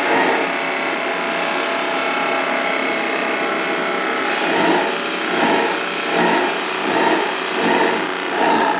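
Model live-steam launch plant running: a steady rushing hiss from the gas burner and steam. From about four seconds in it pulses about once every three-quarters of a second, the single-diaphragm gas regulator with its doubled new membrane hunting at its regulation pressure.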